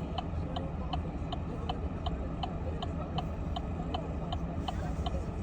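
A vehicle's indicator flasher clicking steadily, a little under three clicks a second, over the low rumble of the vehicle driving, heard inside the cabin.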